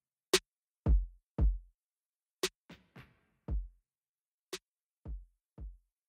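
Background music: a sparse electronic drum-machine beat. A sharp snare-like hit is followed by two deep kick-drum hits, repeating about every two seconds with silence between the hits.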